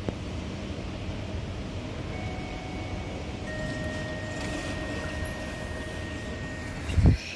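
ThyssenKrupp passenger elevator arriving: a steady machinery hum with held chime-like tones for a few seconds, then a low thump near the end.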